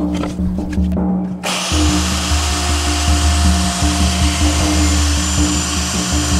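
Handheld plunge router running steadily with a high whine, cutting a groove along the traced outline of a wooden cutting board; it comes in abruptly about a second and a half in. Background music plays throughout.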